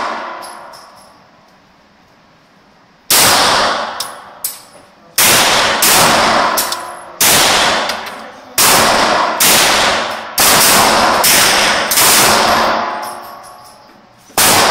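Glock 17 9mm pistol fired in a string of shots, roughly one a second, starting about three seconds in. Each shot rings on in the reverberant indoor range.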